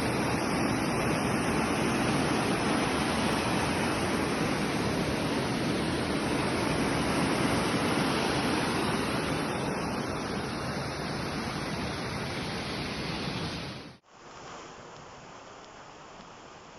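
Mountain waterfall: a loud, steady rush of falling water. About fourteen seconds in it cuts off abruptly to a quieter, duller steady rush.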